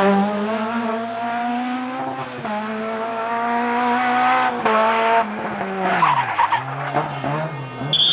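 Opel Kadett rally car's four-cylinder engine held at high revs as it accelerates away, the pitch stepping at gear changes about two and a half and four and a half seconds in, then falling away around six seconds in. A second engine comes in near the end.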